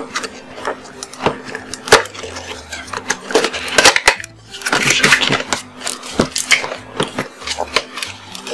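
Cardboard webcam box being handled and opened by hand: irregular taps, clicks and rustling of cardboard and plastic packaging, busiest around the middle.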